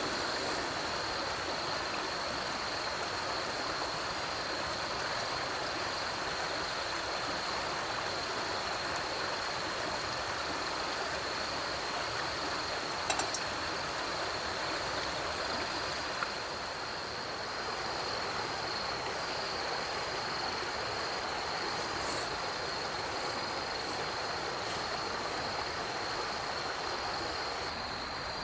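Canister gas stove burner running with a steady rushing hiss, with a brief metal clink about halfway through as a pot is set on the flame. A steady high cricket trill runs underneath.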